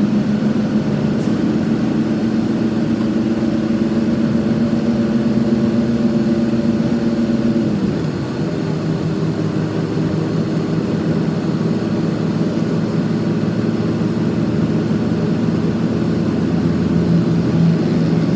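Express bus engine running steadily, heard from inside the passenger cabin; its pitch drops a little about eight seconds in as the engine slows.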